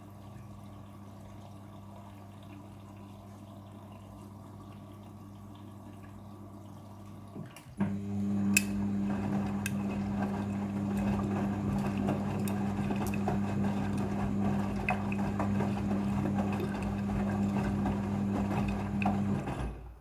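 Midea front-loading washing machine running, with water flowing and a steady electric hum. About eight seconds in it gets much louder, with scattered clicks over the water, and it stops abruptly near the end.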